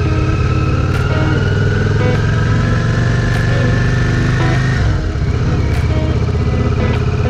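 Yamaha Virago V-twin motorcycle engine running under the rider. Its pitch climbs steadily as the bike accelerates, then falls off about five seconds in and holds at a lower, steady note.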